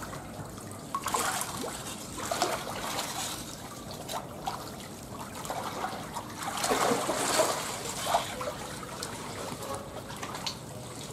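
Shallow muddy pond water trickling and splashing in irregular surges as a person wades and sweeps a hand net through it, the biggest splashing about seven seconds in.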